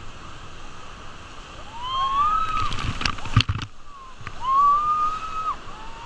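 Whitewater rushing and splashing around a raft running a rapid, with a cluster of sharp splashes near the middle. Rafters yell twice over it, two long rising whoops held high.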